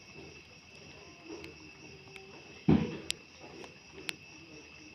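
Night chorus of crickets trilling steadily. A single loud thump comes a little past halfway, with a few sharp clicks after it.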